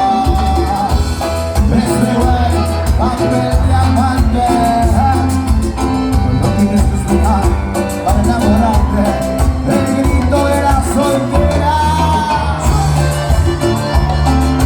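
Live Latin dance band (cuarteto) playing a passage without lyrics: a steady pulsing bass beat under a melody line.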